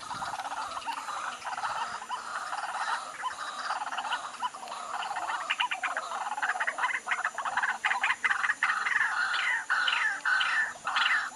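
A dense chorus of many animals calling at once: rapid, overlapping, clicking call notes that get louder and choppier about halfway through.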